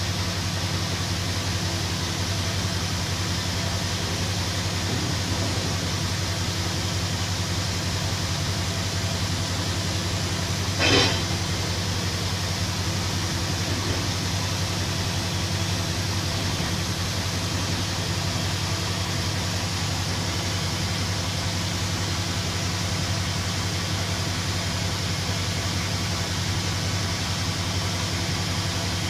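Heavy open-pit mining machinery running with a steady low engine drone. One short loud knock about eleven seconds in, and a fainter one a few seconds later.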